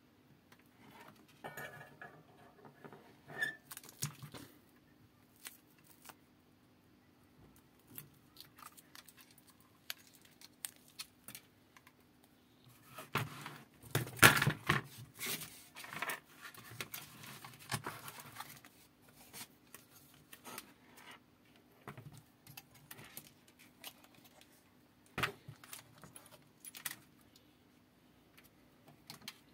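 Scattered clicks, rattles and rustles of hands handling a circuit board, its wires and a small power supply module on a wooden workboard, loudest in a cluster about halfway through, with a faint steady low hum underneath.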